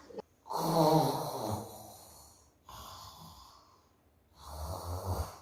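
A woman snoring in three breaths. The first is the loudest and starts about half a second in, with a voiced pitch that falls. A softer breath comes in the middle, and a deeper snore comes near the end.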